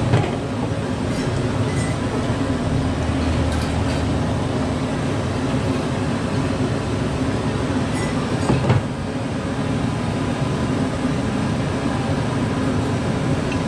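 A steady low rumble, with two short knocks of ceramic bowls or utensils: one right at the start and a louder one about eight and a half seconds in.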